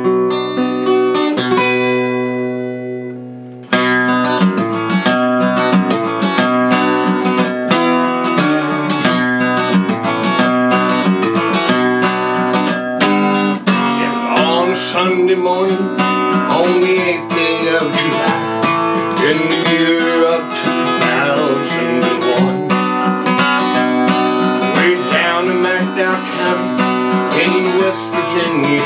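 Acoustic guitar music, fingerpicked with a bluesy feel. A chord rings out and fades a couple of seconds in, then the playing comes back in full at about four seconds, and bending notes appear in the second half.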